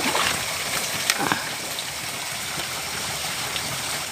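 Water running steadily in a concrete channel, with a couple of brief splashes near the start and again about a second in as a hand reaches into the water.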